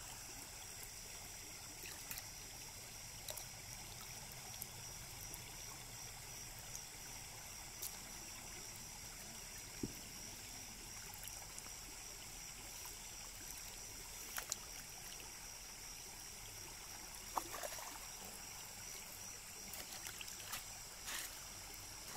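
Water trickling and splashing lightly as a plastic scoop ladles small fish and water out of a fishing net, with a few short knocks and splashes scattered through. A steady high-pitched hiss sits underneath.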